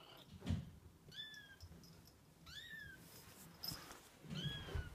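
Two-week-old kittens mewing: three short, high-pitched cries that rise and then fall, about a second and a half apart. Low thumps come about half a second in and again near the end.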